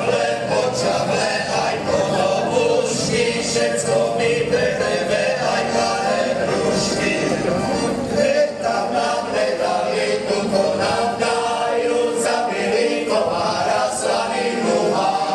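A group of men singing a Slovak folk song together, with an accordion accompanying, steady and unbroken.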